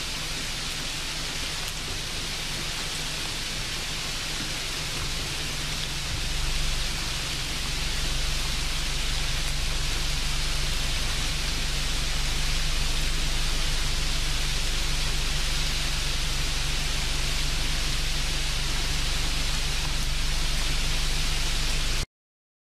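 Steady hiss with a low hum underneath, a little louder from about six seconds in, cutting off abruptly near the end.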